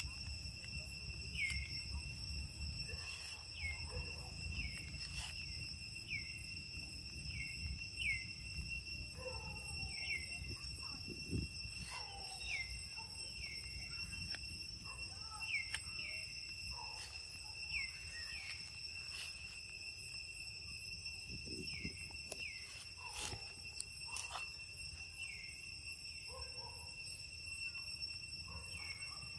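Forest ambience: a steady high-pitched drone of insects, with a short falling chirp every second or two and a few sharp clicks scattered through.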